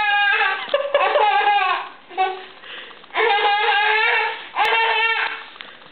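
A toddler's high-pitched voice in long, drawn-out cries: two long stretches with a short one between, dying away near the end. A sharp click about four and a half seconds in.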